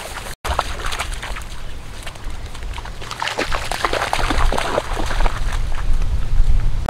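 Muddy water sloshing and splashing as dogs wade through a shallow flooded field edge, in scattered irregular splashes over a steady low rumble.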